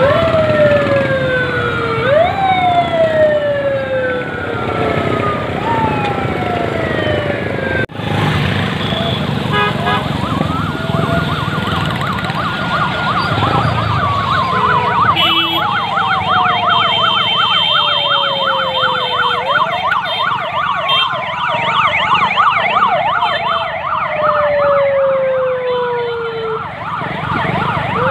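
Several police vehicle sirens sounding at once, overlapping wails that rise sharply and then fall slowly. About halfway through, a fast warbling yelp joins in.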